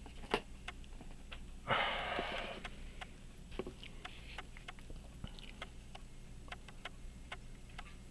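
Small, irregular clicks of tools and parts on a pocket watch movement being assembled, with a sniff about two seconds in.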